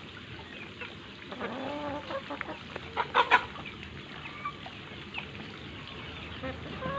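Chicken clucking, with a short cluster of sharp knocks about three seconds in that is the loudest part, and faint high chirps throughout.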